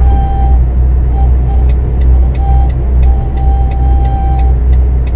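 Lorry engine and road noise while driving: a loud, steady low drone. About a second and a half in, faint regular ticking starts, roughly three ticks a second.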